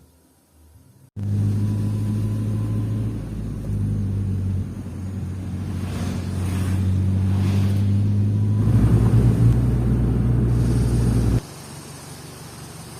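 Car engine running with a steady low hum, starting suddenly about a second in, getting louder near the end and then cutting off abruptly.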